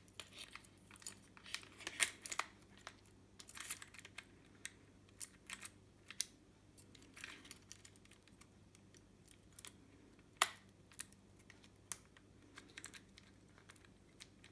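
Scattered light clicks and taps, with a few sharper knocks, of a cross-head screwdriver working the chain-tension adjustment screw on a mini chainsaw's bar and chain.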